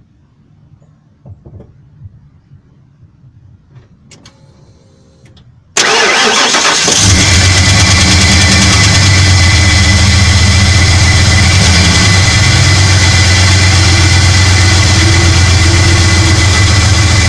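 Ford F-150 SVT Lightning's 5.8-litre V8 starting: quiet with a few faint clicks at first, then about six seconds in the engine cranks and catches abruptly and settles into a steady idle.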